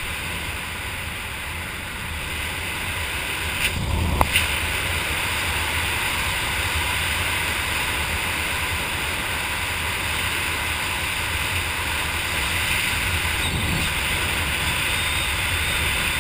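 Steady rush of wind over a skydiver's camera microphone during canopy flight under an open parachute, with a few brief knocks about four seconds in.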